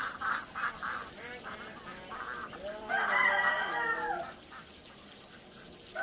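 Ducks quacking in a quick run of short calls, then a rooster crowing once about three seconds in, a single arching call lasting over a second and the loudest sound here.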